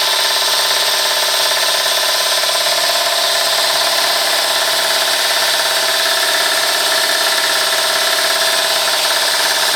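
Eurocompress air compressor running steadily.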